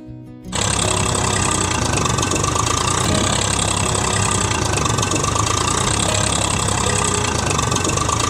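A truck engine running steadily, starting about half a second in.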